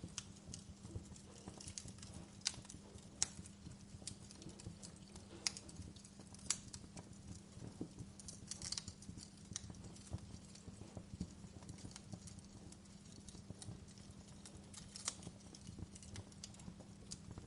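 Wood fire crackling in a fireplace: irregular sharp pops and snaps, a few louder than the rest, over a low steady hum.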